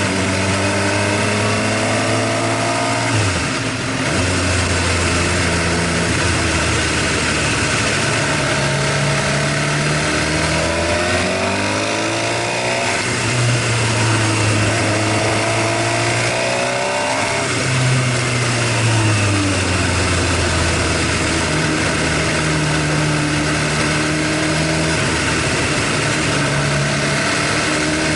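Suzuki GSX-R750 inline-four engine running at around idle, its speed rising and falling gently several times, with the tappet noise that the owner says grows loud until the engine is fully warm: wear after 53,000 km, which he fears means an engine overhaul.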